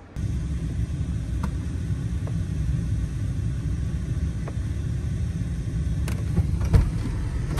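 Car idling, heard from inside the cabin: a steady low rumble, with a few light taps and a heavier thump near the end.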